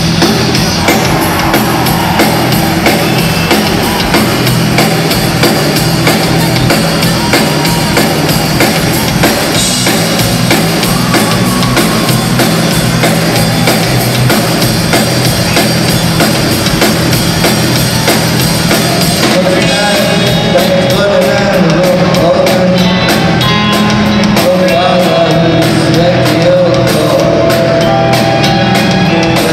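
Rock band and symphony orchestra playing live together, loud and dense with drum kit, heard from the seating of a large arena.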